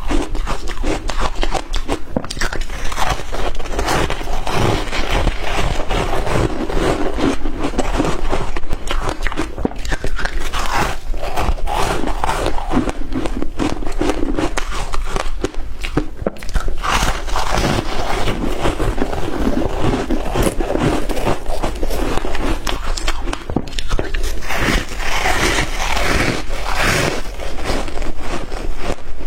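Shaved ice being bitten and chewed, a continuous run of crunches and scraping crackles.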